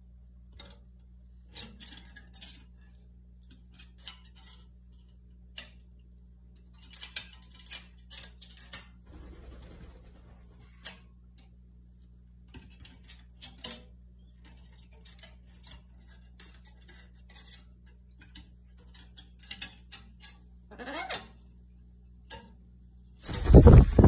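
Scattered clicks and taps of an Amazon parrot's claws and beak on the metal grille of a ceiling air vent as it climbs upside down. There is a soft rustle partway through, a brief rising call near the end, and then a loud burst of noise.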